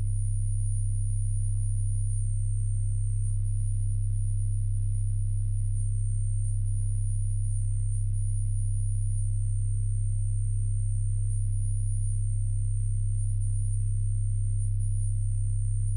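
Pipe organ holding deep, low pedal notes in a steady drone, the low tones pulsing faintly against each other. A faint, very high thin tone flickers between two close pitches above it.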